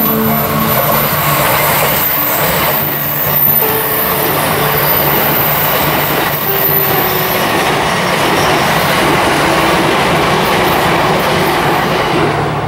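An E353 series limited express electric train passing close by at speed: a steady, loud rush of wheels on rail and air. The sound drops away sharply at the very end.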